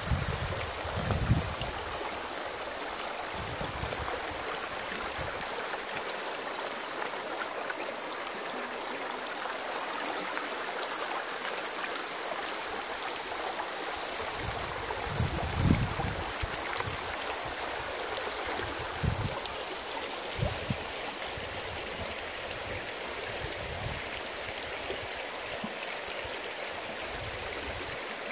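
Shallow, rocky stream running over stones: a steady, even rush and gurgle of water. A few brief low thumps break in, the loudest about halfway through.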